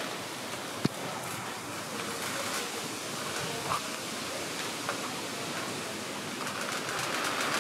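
Steady outdoor background hiss, with a single sharp click a little under a second in and a few faint short calls near the middle.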